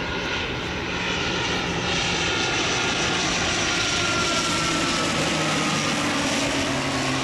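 ATR 42 twin-turboprop airliner passing low overhead on landing approach: a steady drone of engines and propellers, with a whine that slowly falls in pitch as it goes by.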